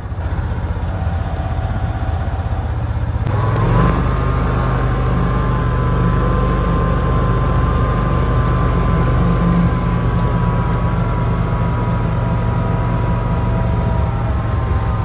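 An open utility cart's motor driving along with a steady low rumble and a whine, picking up speed about four seconds in and then running steadily.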